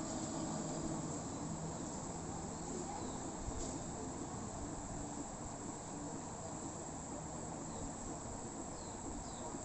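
Steady background insect chirring, with a few faint short chirps near the end.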